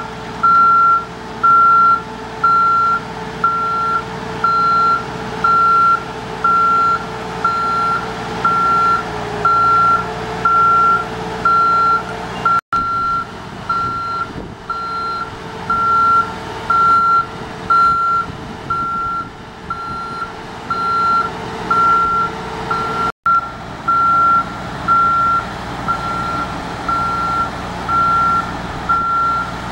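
JLG 450AJ boom lift's motion alarm beeping, a steady high tone about twice a second, while the boom is being raised and swung, over the steady running of its Ford four-cylinder engine and hydraulics. The sound drops out for an instant twice.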